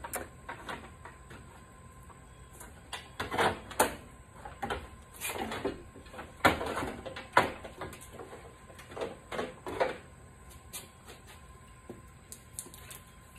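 A car radiator being worked loose and pulled out of a Jeep's engine bay: a run of irregular scrapes and knocks as the plastic tanks and metal core bump and rub against the surrounding parts, busiest from about three to ten seconds in.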